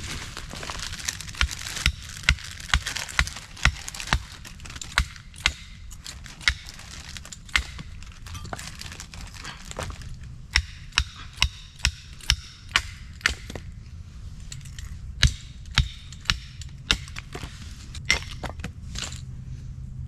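Hatchet chopping into fallen branch wood: sharp strikes in runs of about two a second, with short pauses between runs.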